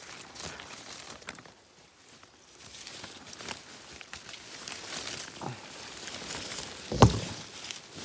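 Rustling and crackling of leaves and twigs, with scattered small snaps and clicks and one heavy thump about seven seconds in.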